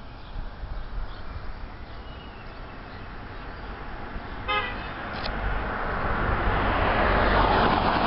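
A car passing close by on the road, its engine and tyre noise swelling to a peak near the end. About halfway through, a short horn toot.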